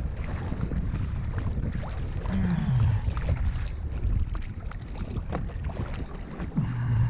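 Wind buffeting the microphone over water slapping around a kayak, with splashes from a hooked conger eel thrashing at the surface beside the hull.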